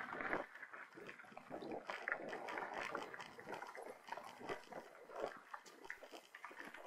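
Mountain bike riding over a dirt trail: a dense, irregular run of crunches, knocks and rattles from the tyres and frame.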